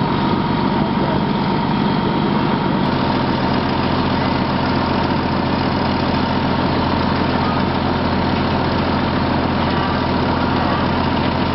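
Fire truck engine running steadily at idle, a constant low rumble with a steady high tone over it.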